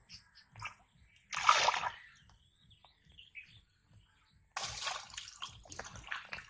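Water splashing and sloshing as hands grope through shallow muddy water. There is one loud splash about a second and a half in, then a longer run of churning splashes from about four and a half seconds in.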